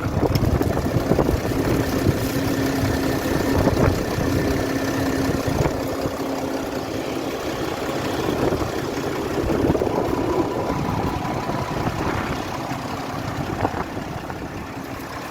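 New Holland T7.210 tractor's six-cylinder diesel engine running steadily, with a faint steady hum over it for the first few seconds.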